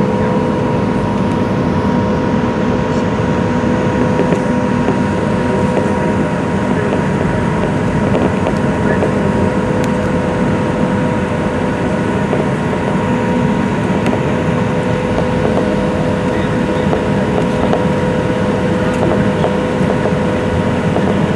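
Cabin noise of a Boeing 737-700 taxiing, its CFM56-7B engines running at low power: an even rumble with a steady whine.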